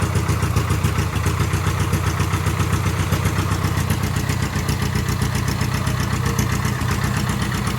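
Piston engine of a World War I–era airplane running steadily at idle just after starting, its propeller turning, with a rapid, even firing pulse.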